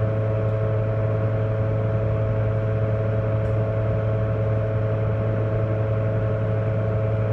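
Lincoln Power Wave 455M welding power source running on test: a steady electrical hum with its cooling fan whirring, unchanging throughout.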